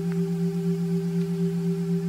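Ambient drone music: two steady low tones held throughout, with a slight wavering pulse and a few faint ticks.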